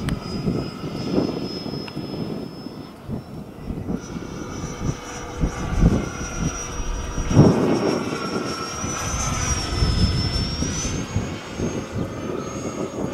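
The 70 mm, 12-blade electric ducted fan of an FMS Yak-130 model jet whining high overhead in flight. Its pitch steps up about four seconds in, then dips and climbs again near the ten-second mark as throttle and distance change. Gusts of wind buffet the microphone with low rumbling bursts, the loudest about seven seconds in.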